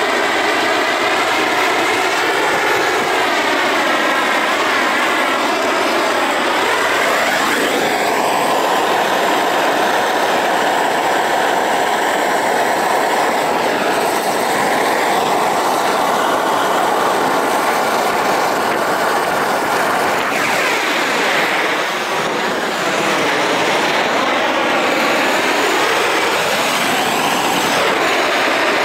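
Propane roofing torch burning with a steady loud roar while heating torch-on bitumen felt, the tone of the rush sweeping up and down now and then.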